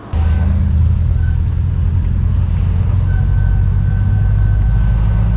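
Mercedes-AMG E63 S twin-turbo V8 driving slowly, heard from inside the cabin as a steady low engine drone, with a faint high-pitched whine coming in about three seconds in. The whine is the random squeak the car makes at low speed, which the mechanic traces to constant crankcase suction pulling down on the engine's oil filler cap.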